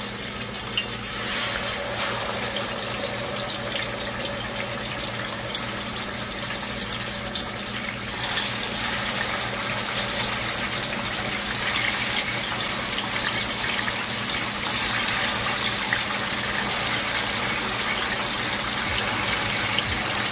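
Chicken leg quarters frying in a pot of hot oil, a steady sizzling hiss. It grows louder about eight seconds in as more pieces go into the oil.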